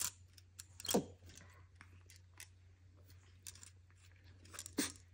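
Scattered faint clicks and taps of a white plastic tube and its fitting being handled and twisted by a capuchin monkey, with two louder sharp knocks about a second in and near the end, over a faint steady low hum.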